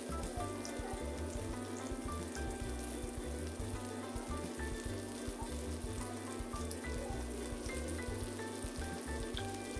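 Egg-battered beef slices (yukjeon) sizzling and crackling in oil on a flat steel griddle, with background music playing over it.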